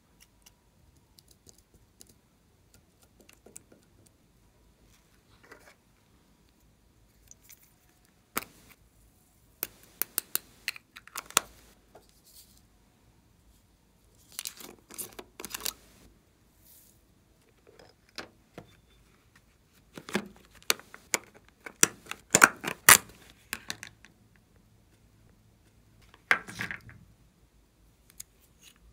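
Small plastic containers, caps and packaging being handled and opened by hand. It is quiet at first, then comes in groups of sharp plastic clicks and crinkly rustling, loudest about three-quarters of the way in.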